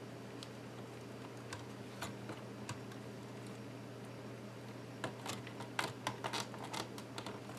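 Small plastic clicks and taps as the iBook G4's case parts are handled and pried at while a stuck piece is worked on: a few scattered clicks, then a quick cluster about five seconds in, over a low steady hum.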